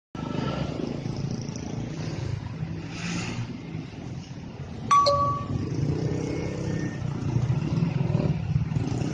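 Buses' diesel engines running with a steady low rumble. A short hiss comes about three seconds in, and a sharp clank with a brief ringing tone near five seconds.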